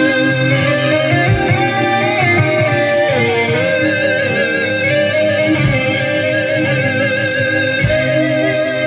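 Live heavy metal band playing an instrumental passage: an electric guitar plays a lead melody with vibrato over bass, rhythm guitar and a steady drum beat.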